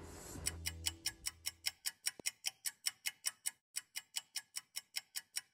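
Ticking clock sound effect: fast, even ticks, about six a second, starting about half a second in, with a short break a little past halfway.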